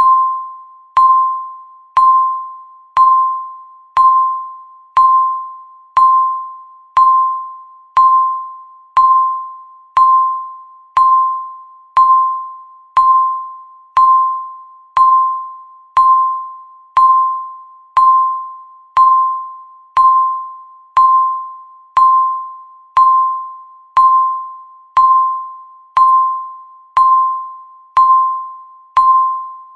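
Countdown timer's tick sound: a single ding-like tone struck once a second, each fading quickly before the next.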